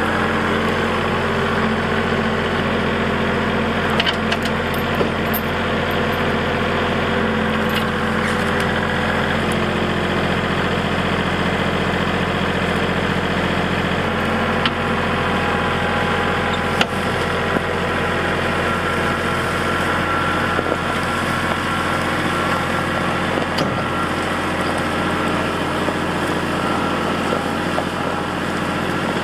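Compact tractor engine running steadily as the tractor lifts and drags a log chained to its loader bucket, with a few sharp knocks.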